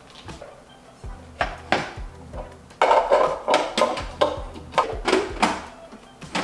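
Plastic parts of a countertop food processor clicking and clattering as the bowl and lid are fitted onto the base, a string of knocks and short rattles. Background music with a steady beat plays under it.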